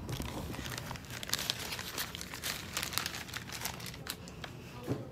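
Crinkling and rustling of a shiny silver wrapper being handled, a steady run of irregular crackles.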